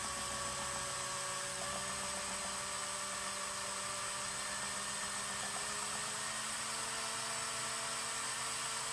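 Small electric paint mixer motor running steadily at low speed, stirring catalyst into a can of 2K primer, with a steady whine over a hiss. Its pitch steps up slightly a couple of times partway through.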